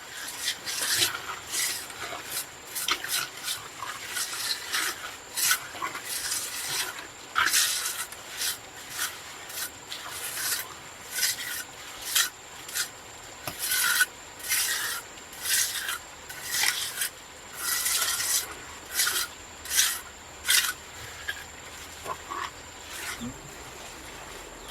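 Repeated rasping, scraping strokes, roughly one a second and uneven in length, dying away near the end.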